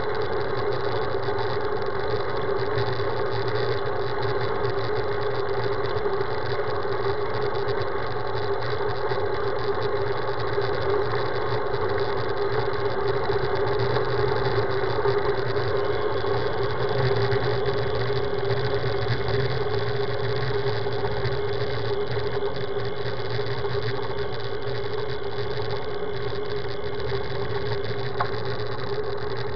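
Steady riding noise of a road bicycle rolling along asphalt, picked up by a camera mounted on the bike: tyre and wind noise with a constant hum and no distinct events.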